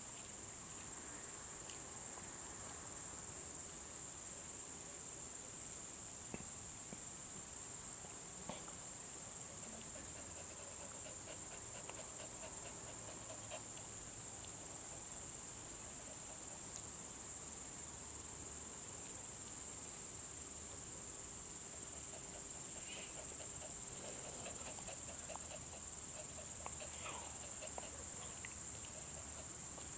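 A chorus of night insects chirring without a break, a continuous high-pitched trill.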